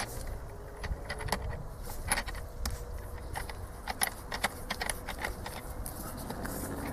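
Irregular metallic clicks and clinks of a spanner, the injector stand and the parts of a Delphi diesel injector being handled as the injector is unscrewed and taken apart.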